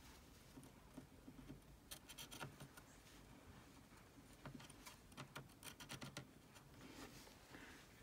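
Near silence with faint, scattered ticks and scratches: metal tweezers and a soldering iron tip working at a small connector on a laptop motherboard, rocking it back and forth to lift it off.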